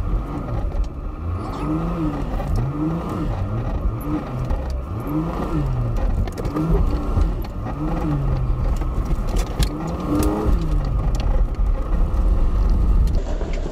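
A van's engine revving up and down over and over as it crawls a rough rocky road, sped up to double speed, with scattered knocks and rattles from the vehicle.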